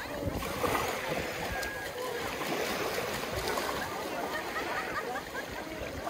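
Seaside beach sound: small waves and splashing water under a steady wash of wind, with distant voices of people on the beach and in the water.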